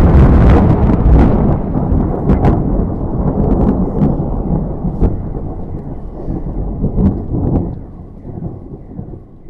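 Thunder rumbling, loudest at the start and rolling away, fading steadily over about eight seconds, with a few sharp clicks along the way.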